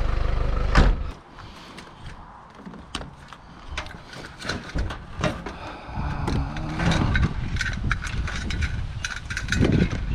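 A vehicle engine's low hum cuts off with a knock about a second in. Then come irregular clicking, rattling and scraping of hard objects being handled.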